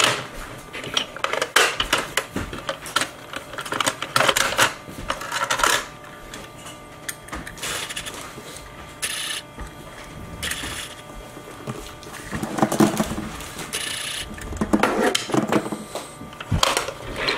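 Plastic toy hauler trucks and a small die-cast car handled on a tabletop: irregular clicks, clatters and short scrapes of hard plastic and metal knocking and sliding.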